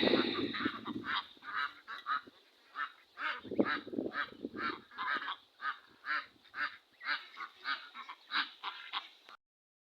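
Ducks quacking: a run of short calls, about two a second, that cuts off suddenly near the end.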